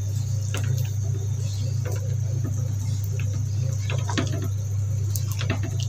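A spatula stirring thick, simmering chicken rendang in a wok, giving scattered soft clicks and plops. Under it runs a steady low hum, the loudest thing heard.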